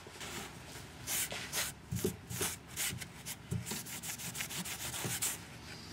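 Cloth wiping oil and metal swarf off a steel chainsaw guide bar: a run of quick, irregular rubbing strokes, several a second, starting about a second in.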